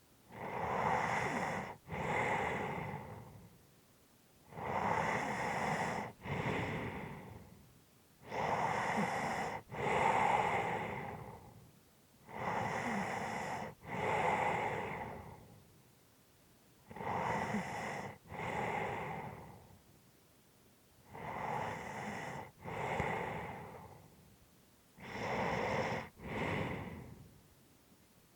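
A person breathing heavily and slowly while resting, with about seven deep breaths. Each breath is an audible inhale followed at once by an exhale, with a short pause before the next, about one breath every four seconds.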